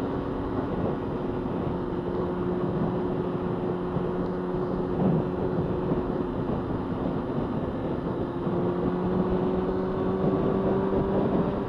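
Honda CBR600F4i sportbike's inline-four engine running at steady revs under way, with a rushing noise over the microphone. The engine pitch rises a little near the end.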